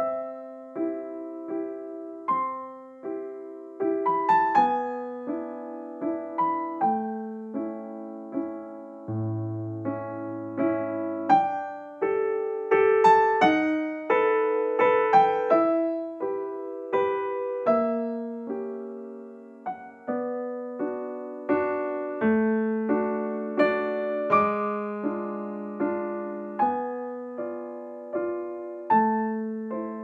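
Background piano music: a gentle melody of single notes and chords, each note struck and then fading.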